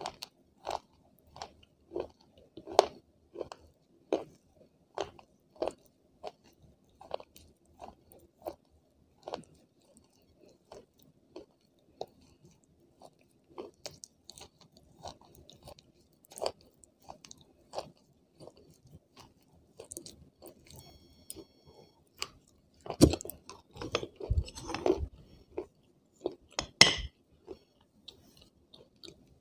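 Close-miked chewing of crunchy white chalk-like pieces: sharp crunches about once every second, then a louder, denser run of crackling a little past twenty seconds in.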